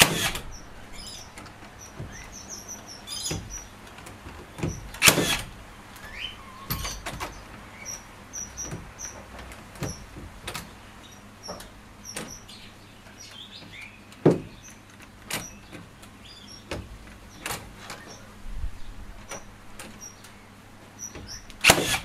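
A HiKOKI NR3665DA 36 V battery-powered, gasless metal connector nailer firing nails through a steel hurricane tie into timber framing. There are a few sharp shots several seconds apart, with lighter clicks and knocks between them as the tool's tip is placed in the tie's holes.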